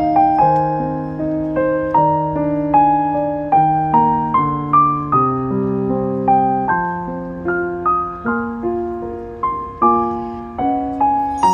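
Background music: a slow, gentle piano melody of single struck notes that ring and fade one after another.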